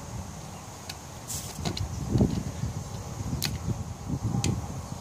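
Handling noise and a few sharp clicks as wire spade connectors are pulled off and pushed onto the motor's junction-box terminals with needle-nose pliers. The rustling and knocking come in irregular bursts, with separate small clicks.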